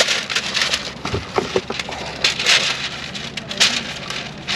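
A sheet of baking paper rustling and crinkling in irregular bursts as it is handled, folded and pressed into a metal oven tray.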